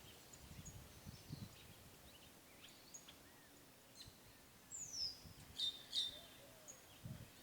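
Birds chirping outdoors: scattered short high calls over faint background noise, the loudest a cluster about five to six seconds in that includes a falling whistle.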